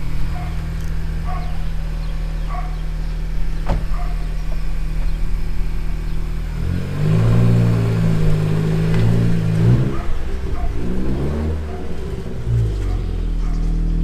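Honda Civic Si's 1.5-litre turbocharged four-cylinder engine running steadily, then from about seven seconds in rising and falling in pitch several times as it is revved under acceleration, settling back near the end.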